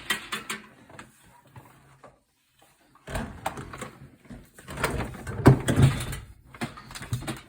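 Clattering and knocking of things being handled and moved about, with a near-silent gap of about a second partway through.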